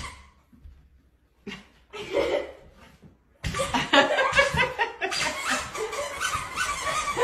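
People laughing: a short burst of giggling about two seconds in, then continuous hearty laughter in rapid pulses from about three and a half seconds in.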